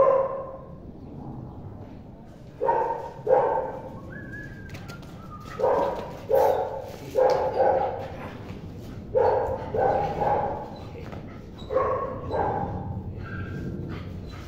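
Dog barking repeatedly while playing, in short runs of two or three barks.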